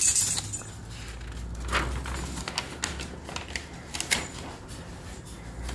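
Paper instruction sheets rustling and crackling as they are handled and a page is turned, with a burst of crackle at the start and scattered small clicks after.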